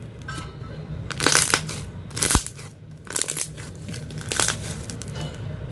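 Hands squeezing and pressing slime, giving about four louder squishes roughly a second apart.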